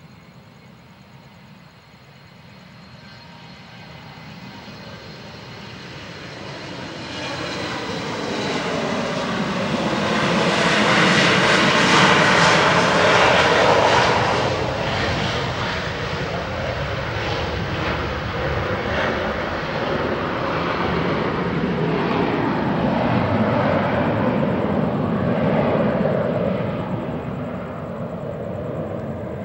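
A Boeing 727-200's three Pratt & Whitney JT8D turbofans running at takeoff power during the takeoff roll. The roar grows as the jet approaches and is loudest about twelve seconds in as it passes, where the engine whine falls in pitch. A loud, steady rumble follows as it moves away, easing near the end.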